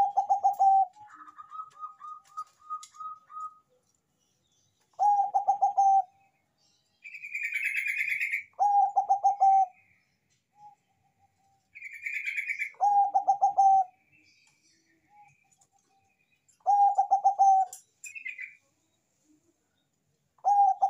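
Zebra dove (perkutut, Bangkok type) singing its staccato cooing song: a rapid, pulsed coo phrase about a second long, repeated about every four seconds. Higher, shorter chirping trills from another bird come in between the coos.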